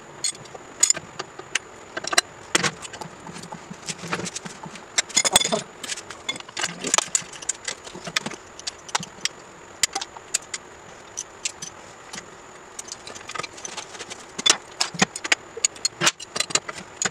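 Hand ratchet wrench clicking in irregular bursts as a socket turns the motorcycle's rear axle nut, with metal tools clinking; the clicks thin out in the middle and pick up again near the end.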